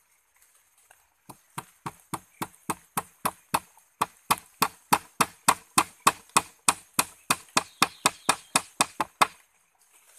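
Claw hammer driving a nail into the rim of a large metal pot: a steady run of about thirty strikes, three to four a second, getting louder over the first few seconds and stopping near the end.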